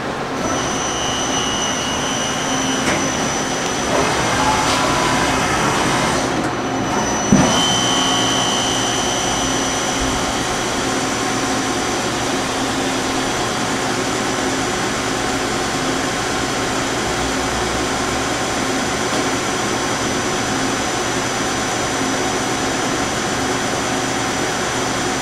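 Okuma LB25 CNC turning center running a part program, its 40 HP spindle turning the chuck with a steady hum and a high whine. A single sharp knock comes about seven seconds in.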